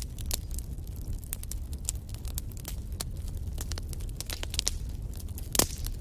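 Wood fire burning, with a steady low rumble of flame and frequent sharp crackles and pops, one louder pop near the end.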